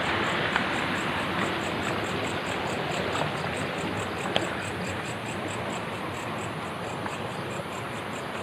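Steady rushing of flowing stream water, with a rapid high chirping pulse of night insects, about five a second, and a few faint clicks.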